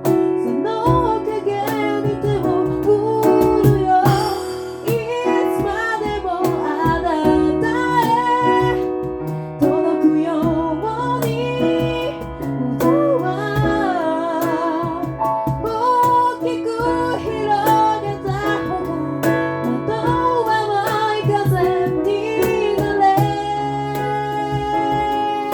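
An a cappella vocal group singing: a wavering lead line over stacked voices holding chords and a low bass line, with a steady beat of sharp clicks.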